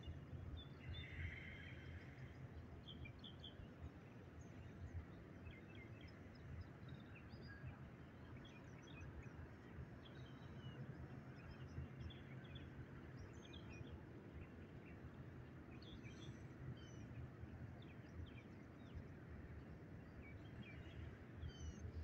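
Faint outdoor ambience: many short bird chirps and calls scattered across the quiet, over a low steady rumble.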